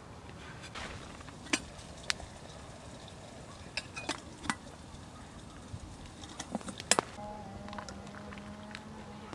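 Sharp metallic clinks of camp cookware being handled, the loudest a double clink about seven seconds in. Then tea is poured from a steel camp kettle into a plastic folding cup, a steady trickling pour.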